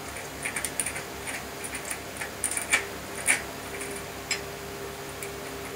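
Irregular light metallic clicks and ticks of cone spanners working the bearing cone and locknut on a bicycle's rear wheel axle, with the loudest two clicks about halfway through. The cone is being backed off because it was set so tight the axle would not spin.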